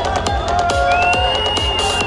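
Music with a steady fast beat and low thumps under long held tones; one high tone slides up about a second in and then holds.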